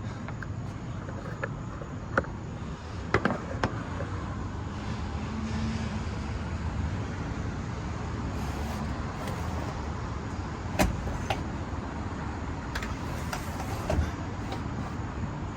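Steady low outdoor rumble of distant road traffic, with a few scattered light clicks and knocks from handling hardware.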